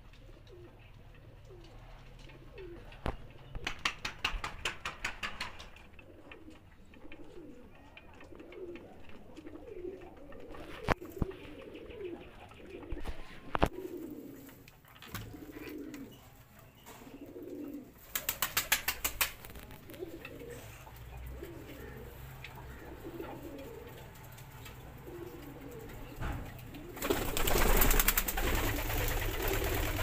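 Domestic pigeons cooing over and over. Twice there is a short burst of rapid clicking, and near the end a louder rushing noise.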